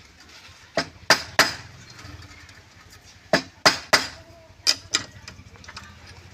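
Eight sharp knocks: a quick run of three about a second in, then three more and a pair in the middle, over a low steady hum.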